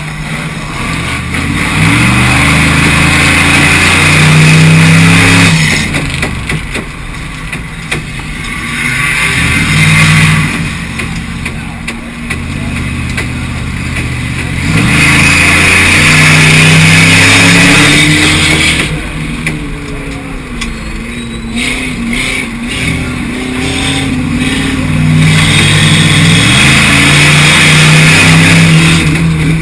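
Race cars' engines revving as the cars lap a speedway track, the sound swelling and fading in waves as they pass, with engine pitch rising and falling through acceleration and lifting off.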